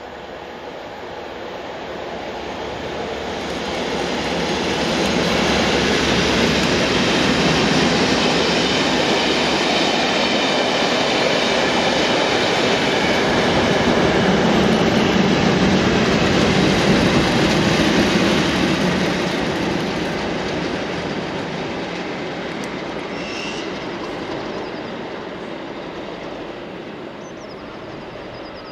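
A train hauled by two Class 37 diesel locomotives, with English Electric V12 engines, passes by with its coaches. The engines and the wheels on the rails build up over the first few seconds, stay loud for about fifteen seconds, then fade as the train goes away.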